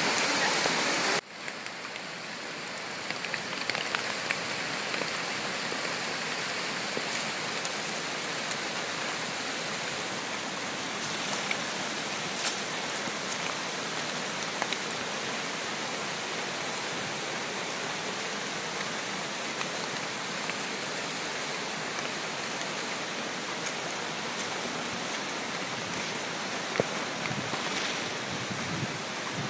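Heavy rain falling steadily, a dense even hiss with scattered sharper drop hits. The level drops suddenly about a second in, then holds a little lower.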